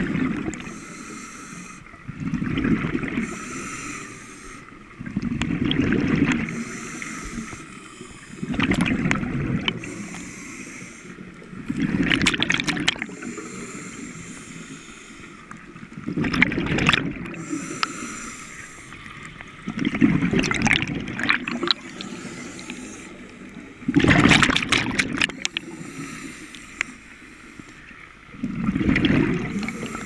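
Scuba diver's breathing through a regulator underwater: a burst of exhaled bubbles about every four seconds, with a fainter hiss of inhalation between them.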